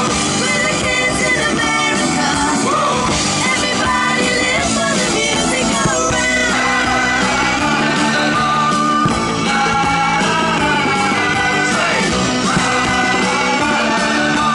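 A rock song with a singing voice, played loud and steady.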